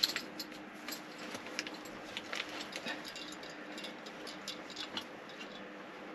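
Hands rummaging among small parts in a plastic-lined hard carrying case: scattered light clicks and rustling as the ground stakes for the guy lines are picked out, over a faint steady hum.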